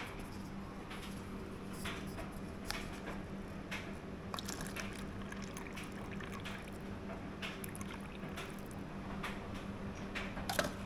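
Water running from a filtered water dispenser into a paper cup, with clicks and taps from handling the cup and the dispenser over a steady low hum. About ten and a half seconds in, a sharp click and rustle as the cup is dropped into a bin lined with a plastic bag.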